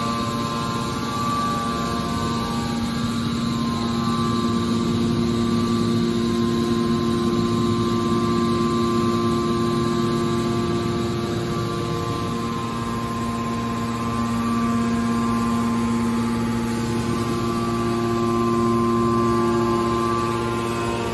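Hydraulic power unit of a scrap metal baler running: electric motor and hydraulic pump giving a steady machine hum with several held tones, which shift slightly about halfway through.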